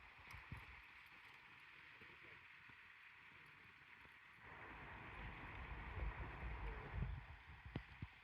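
Faint steady outdoor rushing noise, with wind buffeting the microphone and getting louder about halfway through.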